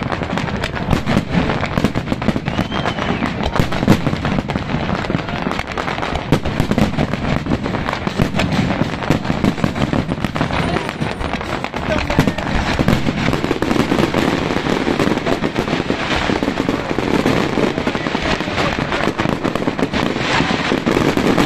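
Large aerial fireworks display: a continuous rapid barrage of bangs and crackling from many shells bursting at once.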